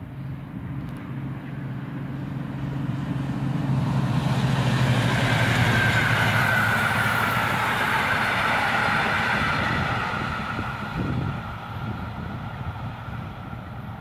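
V200 diesel-hydraulic locomotive and its train of old passenger coaches passing. A steady low diesel drone in the first few seconds gives way to the rolling noise of the coaches, which swells to its loudest midway with a slowly falling tone, then fades as the train moves away.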